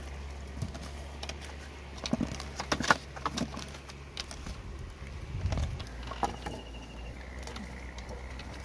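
Hands handling and setting down wet wax gourd wedges: a run of soft clicks and knocks on a woven bamboo tray, then a dull thump about five and a half seconds in, over a steady low hum.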